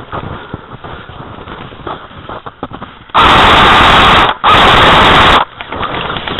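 Two long bursts of full-auto airsoft rifle fire close to the microphone, very loud and distorted, the first about a second long and the second a little shorter after a brief gap, starting about three seconds in. Before them, faint crunching and clicks of movement.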